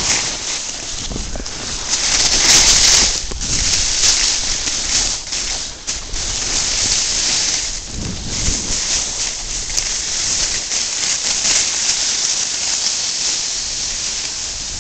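Snowboard sliding and carving over choppy snow, a steady hiss with wind buffeting the microphone, loudest about two to three seconds in.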